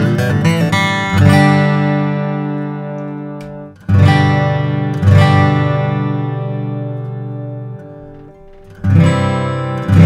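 Martin D-42 dreadnought acoustic guitar being played: a quick run of notes, then several full chords struck a few seconds apart, each left to ring out and fade slowly.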